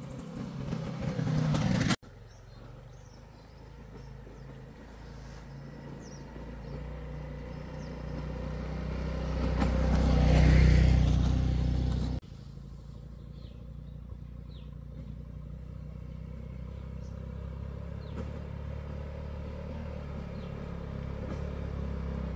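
Small step-through motorbike engine running as the bike rides along, growing louder as it comes close and is loudest about ten seconds in. The sound cuts abruptly twice, and in the last part the engine drones steadily as the bike approaches again.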